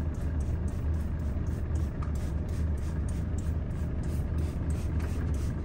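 Trigger spray bottle squirting cleaner in quick hissing bursts, about four a second, over a steady low hum.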